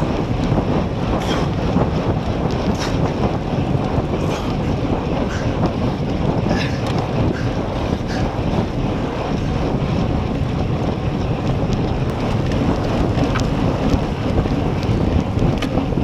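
Wind rushing over the microphone of a camera on a road bike moving at about 40 km/h: a steady, loud rush, with a few faint clicks scattered through it.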